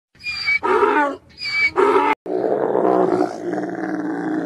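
Donkey braying, two hee-haw cycles in which a high wheezy note alternates with a lower one. Then, from about two seconds in, a camel gives a long, rough groaning roar that fades near the end.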